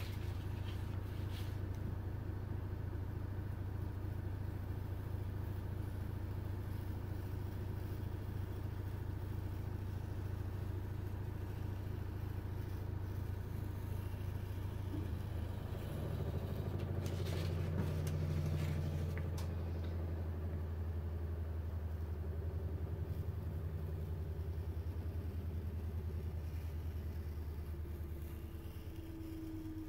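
A steady low mechanical rumble from a running motor, swelling slightly about two-thirds of the way through, with a few faint clicks.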